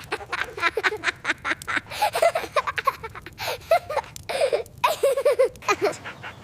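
A young child laughing hard in quick, repeated bursts of high-pitched giggles.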